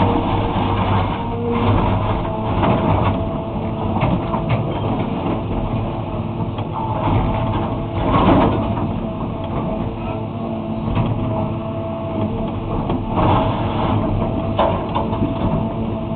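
Excavator's diesel engine running steadily under work, with the bucket scraping and breaking up asphalt in several loud bursts, the loudest about eight seconds in.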